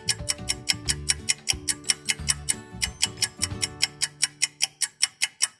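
A rapid clock-ticking sound effect, about six ticks a second, over background music with low bass notes. A time-passing cue in an edited video.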